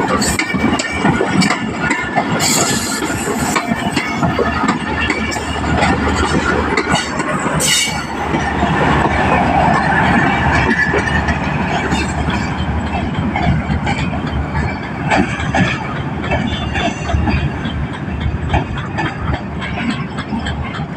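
Passenger coaches of an express train rolling past on the track, their wheels clattering with sharp knocks over rail joints and points.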